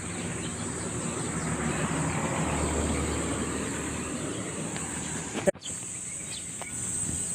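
Crickets or other insects trilling steadily, while a passing vehicle's rumble swells and fades in the first half. The sound cuts out for an instant about five and a half seconds in.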